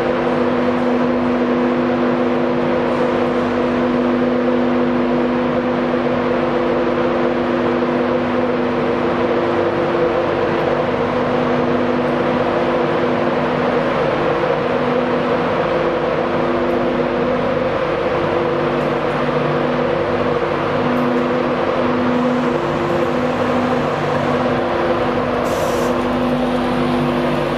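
East Coast InterCity 225 electric train moving out of the platform: a steady rumble of the Mark 4 coaches with several held electrical hum tones, which break up and come and go in the second half.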